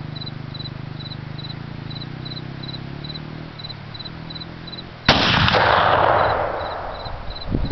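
A Thompson/Center Omega .50-calibre muzzleloader, loaded with 150 grains of powder, fires once about five seconds in: a single sharp blast that booms and rolls away over about two seconds. Before the shot there is a steady low hum with a regular high insect chirping, about two chirps a second.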